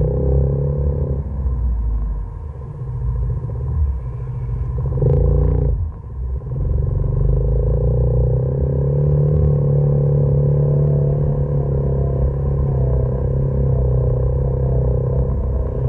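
Engine of the off-road vehicle carrying the camera, running steadily as it drives over sandy ground. There is a sharp knock about five seconds in, and the engine level dips briefly just after.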